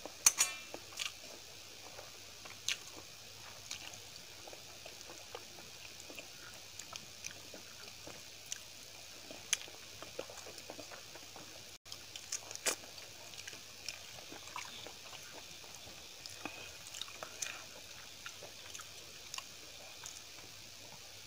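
Close-up eating sounds of rice and dal eaten by hand: soft wet chewing and mouth clicks, with fingers squishing food and scraping across a stainless steel plate. A quick cluster of clicks comes just after the start.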